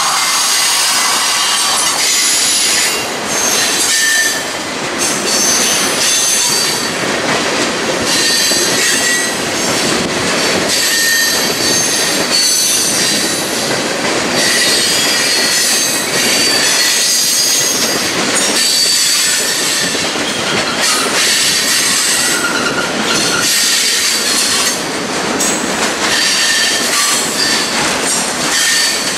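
Freight train cars rolling past: a steady loud din of steel wheels on the rails, with short high-pitched wheel squeals coming and going throughout.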